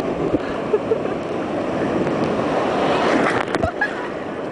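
Rough surf: waves breaking and rushing on the shore in a steady roar, swelling about three seconds in.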